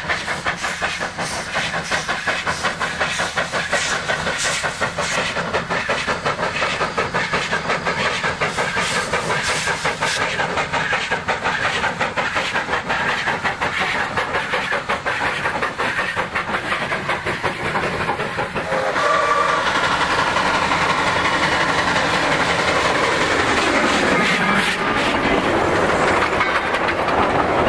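Wood-burning meter-gauge steam locomotive working a passenger train, its exhaust beats coming in quick, even strokes. About 19 s in a short whistle sounds, and the noise grows louder and steadier as the coaches pass close, their wheels clattering over the rail joints.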